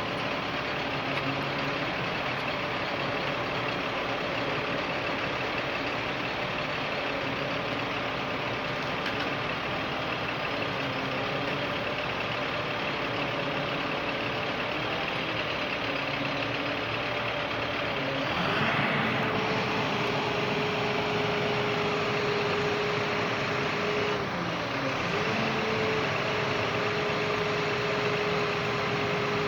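Vehicle engine running steadily as the vehicle drives. About two-thirds of the way through, the engine note shifts to a new steady pitch, and it dips briefly a few seconds later.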